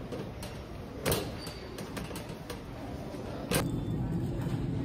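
Wire shopping cart rolling across a store floor, rattling, with a few sharp clicks and knocks; the clearest come about a second in and at about three and a half seconds, after which a steady low background hum sets in.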